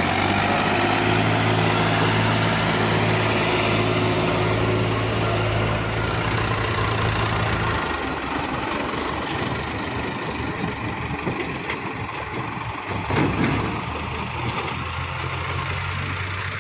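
Diesel farm tractor engines running under load as they pull trolleys heaped with soil. The steady engine note changes at a cut about eight seconds in, when a second tractor is heard, and there is a brief louder surge about three-quarters of the way through.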